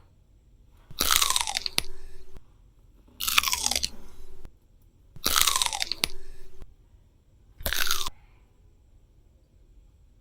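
Four separate crunching bursts, each with a falling pitch inside it; the last one is short.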